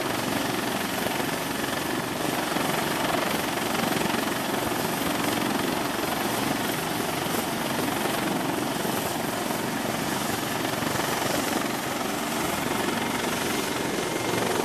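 Helicopter running: a loud, steady wash of rotor and engine noise.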